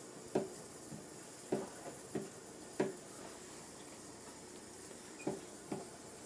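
Danby DDW1801MWP portable dishwasher filling with water at the start of its wash cycle: a faint, steady hiss with about eight light, irregularly spaced taps.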